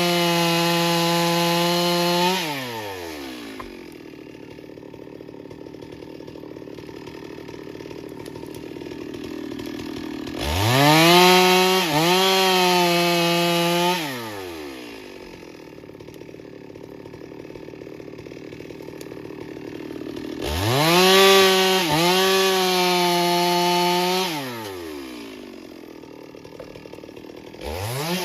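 Two-stroke chainsaw revved to full throttle and held for a few seconds, three times, dropping back to a quieter idle in between, with a short rev blip near the end.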